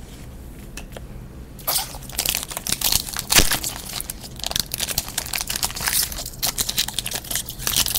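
Foil wrapper of a Platinum football card pack crinkling and tearing as it is ripped open by hand, with dense irregular crackles starting after a quiet second and a half.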